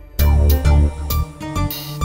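Instrumental background music with a heavy low beat, which drops out for a moment at the very start.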